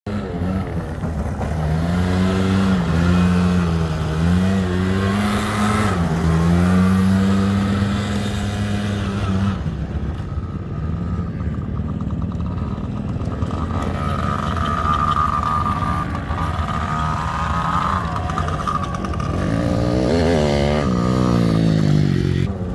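ATV and small youth dirt bike engines revving. For the first several seconds an engine revs up and down, rising and falling in pitch; then quieter engines run with a steady high whine, and there is another rev near the end.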